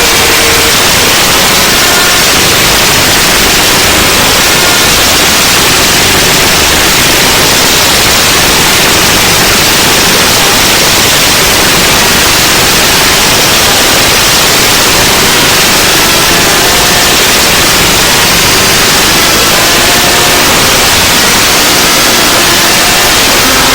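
Very loud, unchanging static-like hiss spread evenly from low to high pitches.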